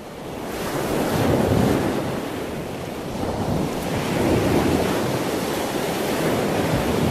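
Ocean surf: waves washing in, fading up at the start and then swelling and easing in slow surges every few seconds.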